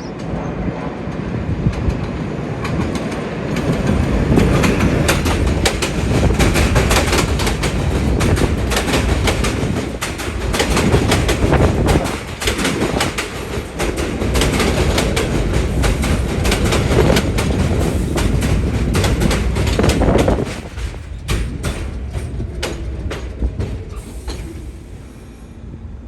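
New York City Subway train passing through the station, its wheels clattering over the rail joints in a dense stream of clacks. The sound builds over the first few seconds, stays loud, then drops off about twenty seconds in and fades away.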